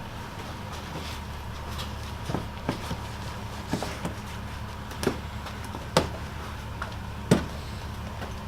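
Scattered sharp clicks and knocks, about eight in all, of hands and tools working at a car's plastic trim fasteners, over a steady low hum.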